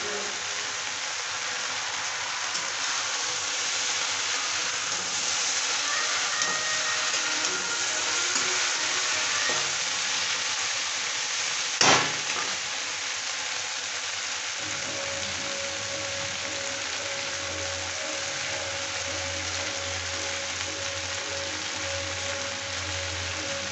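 Sliced okra with onion and tomato frying in oil in an iron wok, sizzling steadily. A single sharp click comes about halfway through, and after it a low steady hum joins the sizzle.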